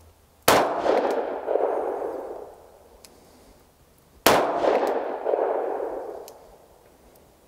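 Two loud shots from a Standard Manufacturing S333 Thunderstruck, a double-barrel .22 Magnum volley-fire revolver that fires two rounds together with each trigger pull, about four seconds apart. Each shot is followed by a long echo that rolls away over about two seconds.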